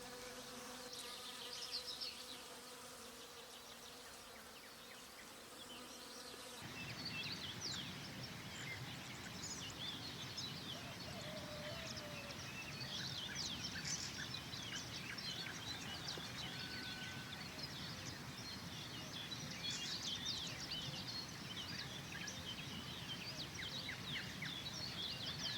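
Soft sustained music for the first few seconds, then it cuts to an outdoor spring ambience: many small birds chirping over a steady buzzing hum, likely insects.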